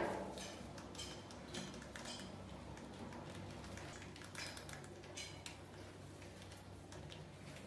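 Rats scrabbling and scurrying: faint, irregular light clicks and scratches of claws on a hard floor and plastic, over a low steady hum.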